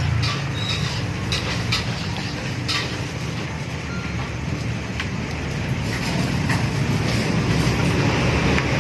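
Steady low rumble of a running vehicle engine, with a few light clicks over it.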